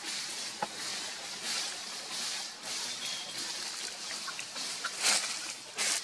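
Dry leaf litter rustling and crackling in short irregular bursts as the monkeys shift and move in it, with a louder crackle twice near the end.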